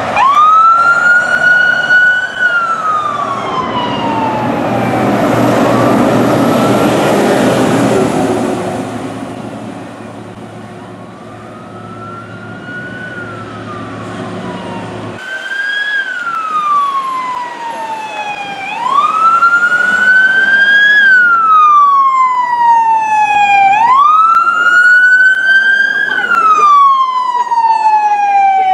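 Fire truck siren winding up fast and falling slowly, repeated over and over. A heavy truck's engine rumbles past during the first long fall, and about halfway through the siren cycles more quickly, four wind-ups a few seconds apart.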